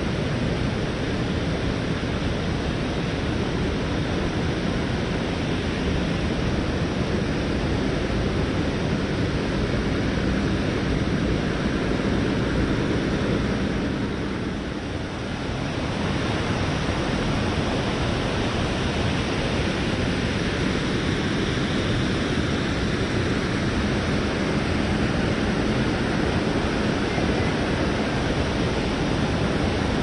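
Steady rush of a waterfall and fast-flowing river water, dipping briefly about halfway through.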